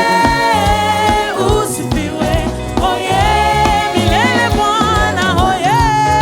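Gospel praise music from a church worship band: a singer holds long, wavering notes over the band's beat.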